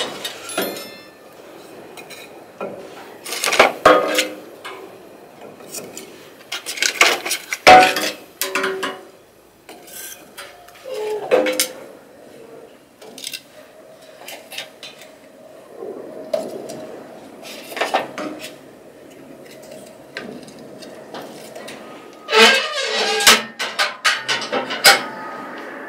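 A wood stove being fed and tended: split firewood knocking against the firebox and the stove's metal door and fittings clanking, in scattered bunches with a quieter stretch in the middle and a dense run of clatter near the end.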